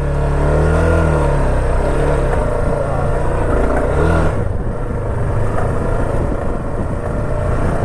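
Motorcycle engine running while riding. Its pitch rises and falls with the throttle in the first couple of seconds, then turns to a rougher, lower running note from about four seconds in.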